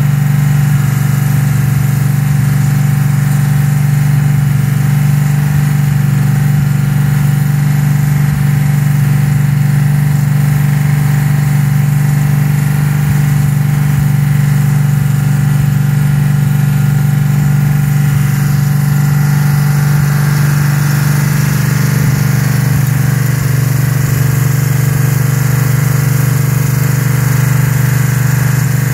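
Freshly rebuilt Ford 428 Cobra Jet big-block V8 running steadily on an engine run stand during its running-in, exhausting through headers and a pair of mufflers. The engine speed holds constant, with no revving.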